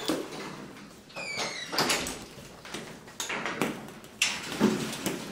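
Wire-mesh cage door being unlatched and opened: metal rattles and several sharp clanks, the loudest near the end. A brief high squeak comes about a second in.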